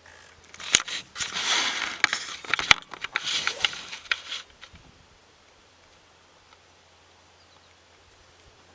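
Close rustling and scraping noise, like gear being handled near the microphone, with two sharp clicks about two seconds apart; it stops about halfway through.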